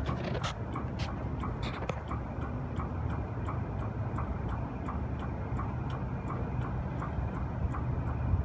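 Copeland refrigeration compressor running with a steady low hum and a fast, even ticking, about three to four ticks a second: a strange noise heard while testing it after an oil drain and drier change, its cause not known.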